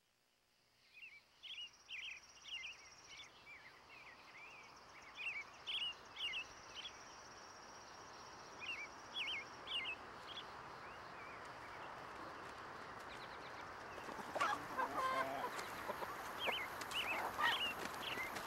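Rural yard ambience: birds chirping in short repeated calls over a thin, steady high buzz, then hens clucking, louder from about three-quarters of the way in.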